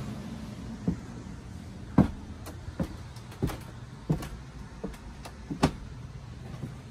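Footsteps on a floor: about ten irregular thuds and knocks, roughly one to two a second, the loudest about two seconds in and just before the end.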